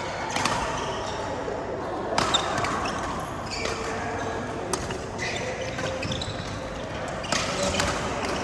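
Badminton rally: a series of sharp racket strikes on the shuttlecock, a second or two apart.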